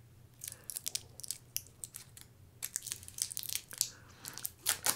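A crinkly candy wrapper being unwrapped by hand, with quick, irregular crackles throughout.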